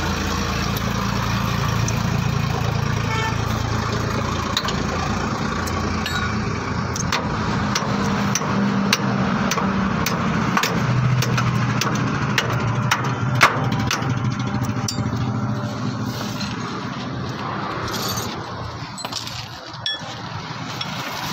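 An engine idling steadily, its hum weakening about two-thirds of the way through, with many sharp metallic clicks and knocks of tools and parts being handled during work on a truck's leaf-spring suspension.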